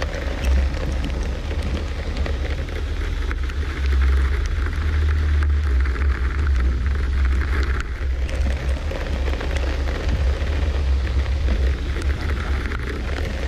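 Suzuki SJ413 off-roader on the move: a heavy, steady low rumble of engine and drivetrain with a rough crackling noise and scattered clicks and knocks over it.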